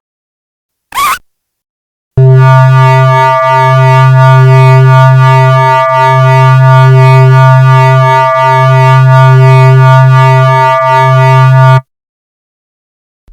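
Loud, steady electronic drone tone with many overtones, pulsing slightly about every two and a half seconds; it lasts about ten seconds and cuts off suddenly. A brief short sound comes about a second in, before it.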